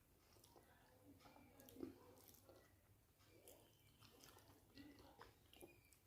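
Faint chewing and soft mouth sounds of someone eating rice and fish curry close to the microphone, with scattered small clicks.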